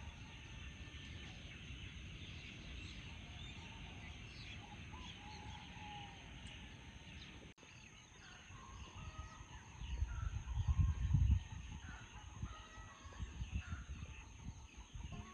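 Birds chirping at dawn with roosters crowing, over a low continuous rumble that swells briefly about ten seconds in.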